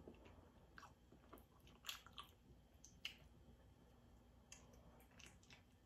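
Faint mouth sounds of biting and chewing a soft peach mochi ice cream: a few scattered, quiet squishes and clicks.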